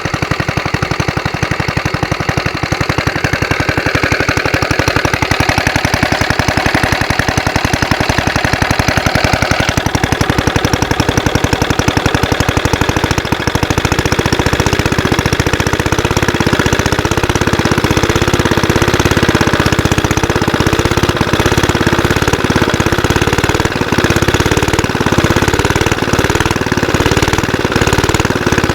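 Single-cylinder Suffolk engine running steadily with a rapid, even firing beat, freshly started now that lapped valves have given it compression. It sounds fairly smooth, not too noisy, and its sound gets fuller about ten seconds in.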